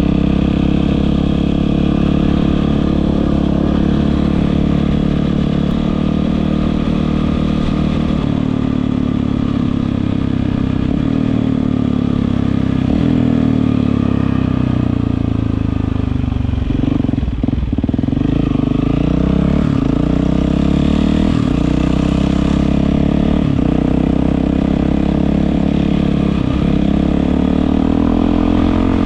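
Yamaha WR450F single-cylinder four-stroke engine running through an Akrapovic aftermarket exhaust, its engine speed rising and falling throughout. The sound dips briefly about halfway through, then climbs again.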